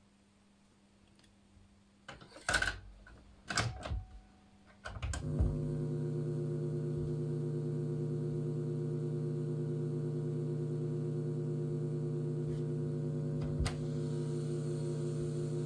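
A few sharp knocks about two to five seconds in, then a steady low hum with overtones that holds unchanged.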